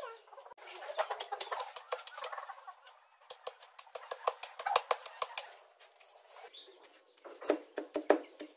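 Steel cleaver chopping raw chicken on a thick wooden chopping block: rapid, even strikes at about four a second start near the end. Before that, only scattered soft knocks and clicks.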